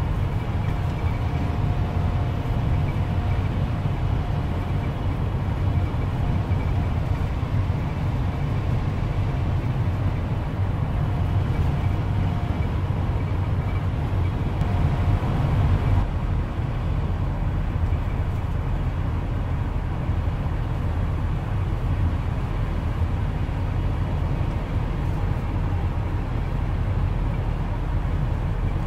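Steady low rumble of road and engine noise from a car driving along a highway, heard from inside the moving vehicle.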